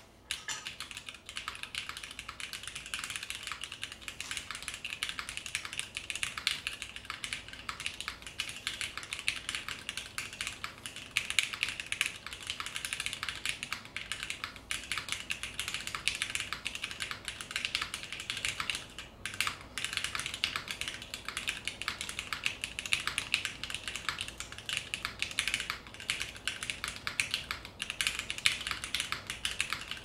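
Fast, continuous typing on a mechanical keyboard with Gateron CJ linear switches, GMK Honor Dark keycaps and an FR4 half plate: a dense stream of crisp key clacks, with a brief pause about two-thirds of the way through.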